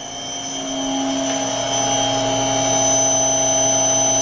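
Three-phase spindle motor of a PM-727M milling machine, fed by a variable frequency drive, spinning up over about the first second and then running at a steady commanded speed of 2000 rpm with a steady hum and whine. The drive shows about 34 Hz output.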